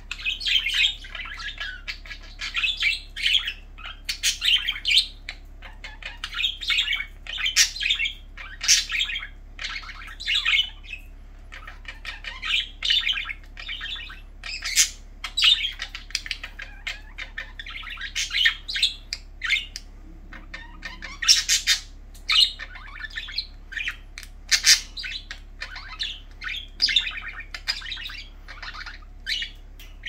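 Several budgerigars chirping and chattering almost without pause, a busy stream of many short, sharp, high calls.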